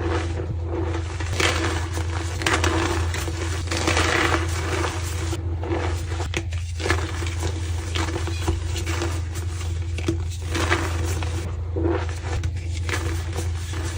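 Reformed white gym chalk being crushed close to the microphone: irregular dry crunching, crumbling and scraping with many small crackles, over a steady low hum.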